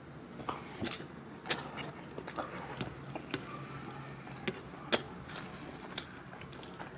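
Eating with the hands: quiet chewing and mouth sounds, with scattered short clicks and taps as fingers mix rice and curry on steel plates and a steel bowl is tipped against a plate.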